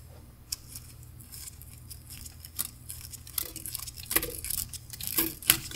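Faint scattered clicks and rustles of gloved fingers handling a watch mainspring barrel while the mainspring is taken out, busier in the second half, over a low steady hum.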